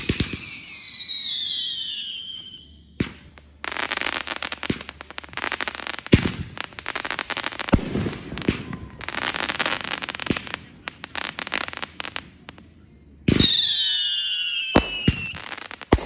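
Consumer fireworks going off: several whistles falling in pitch together at the start and again about 13 seconds in, with a long stretch of dense crackling and popping between them and a few sharp bangs near the end.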